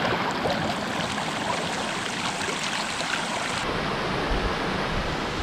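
Rushing river water, a steady even rush; a little over halfway through the sound suddenly turns duller, losing its highest hiss.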